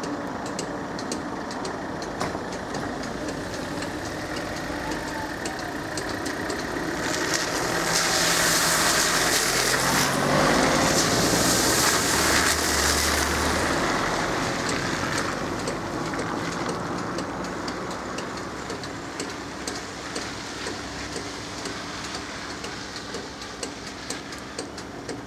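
Car engines idling, then cars pulling away and driving over the level crossing on wet asphalt. The tyre hiss and engine noise build to a peak about 8 to 14 seconds in and then fade, with faint regular ticking throughout.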